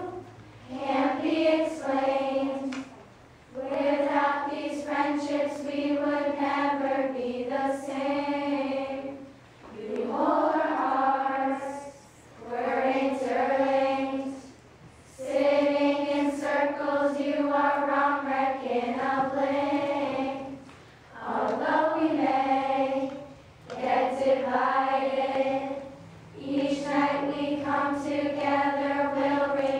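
A large choir of girls singing together, holding long notes in slow phrases a few seconds long with short breaks for breath between them.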